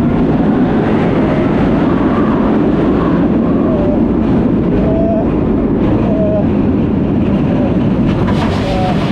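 Kumba, a steel roller coaster, running at speed on its track, heard from the front seat: a loud, steady rush of wind on the microphone mixed with the rumble of the train on the track.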